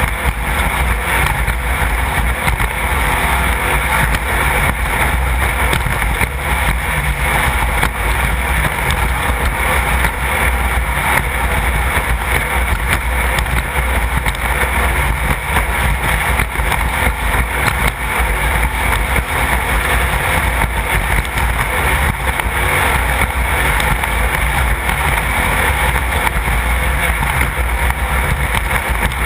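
Class 1600 off-road race car running steadily at speed, its engine noise blended into a loud, constant wash of wind and road noise with no clear revs up or down.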